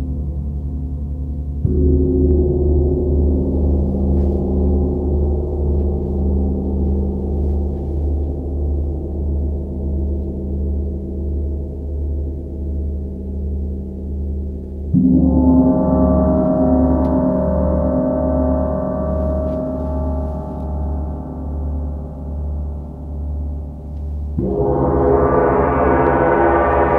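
Several large hanging gongs played with soft felt mallets, building a loud, sustained low wash of ringing. Fresh strokes come about two seconds in, again about halfway, and near the end, each one brightening the sound, and the ringing swells and ebbs in slow pulses about once a second between them.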